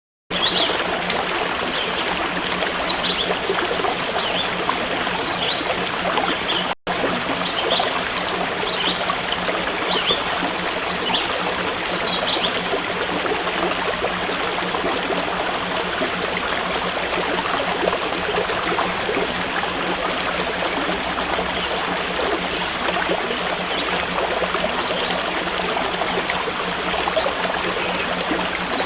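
Steady rush of running water from a stream, with a few short high chirps in the first half. It breaks off for an instant about seven seconds in.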